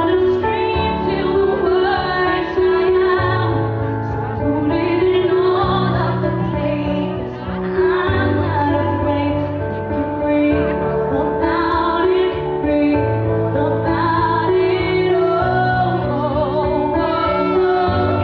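Music with a woman singing a slow melody over sustained bass notes that change every couple of seconds.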